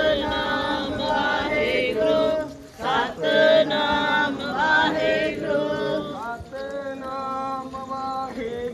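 A group of voices chanting a Sikh devotional hymn together in long, held sung lines, with a short break about three seconds in.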